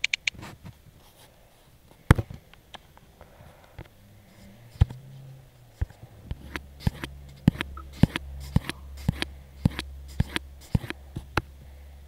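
A series of sharp clicks from operating the device, a few at first and then about two a second from about six seconds in, over a low steady hum.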